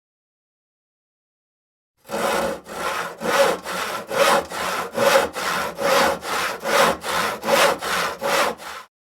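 Hand saw cutting through wood in steady back-and-forth strokes, about two a second with every other stroke louder. It starts after about two seconds of silence and stops shortly before the end.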